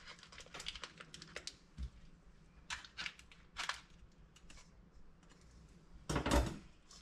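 A metal knife scraping and clicking around the inside wall of a springform cake pan as it loosens the pie from the ring, in quick light scratches and ticks. A louder clatter a little after six seconds in.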